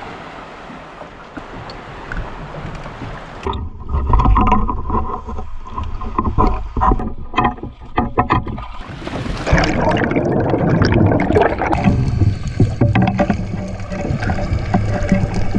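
Small boat on the water with wind and water noise. About three and a half seconds in it turns suddenly louder and busier, with knocks and a low rumble, and steady motor-like tones come in near the end.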